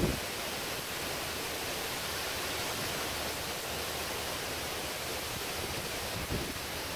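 Heavy rain pouring down steadily over trees, an even hiss.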